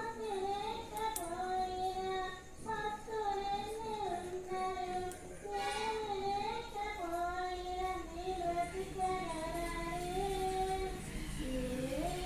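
A high-pitched voice singing a slow, ornamented melody with long held notes that bend in pitch, dipping low and climbing back near the end.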